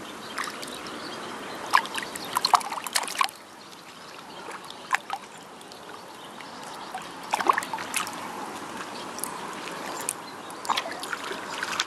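Shallow seawater splashing and trickling as a child's hands scoop and rub water at the shoreline: a cluster of small splashes in the first few seconds, then single splashes a few seconds apart, over a steady wash of water.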